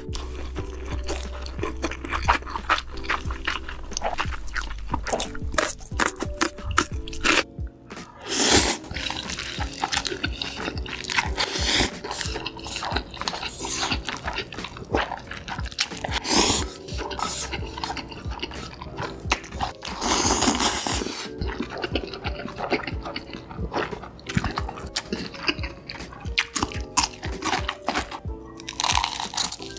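Background music over close-miked eating sounds: noodles slurped and chewed, with many quick wet mouth clicks and a few longer slurps.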